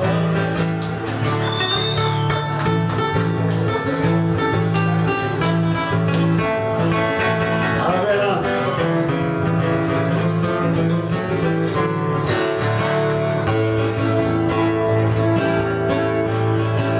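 Instrumental break of a sertanejo raiz song, played on a viola caipira and an acoustic guitar: plucked and strummed strings keeping an even rhythm, with a melody over alternating bass notes.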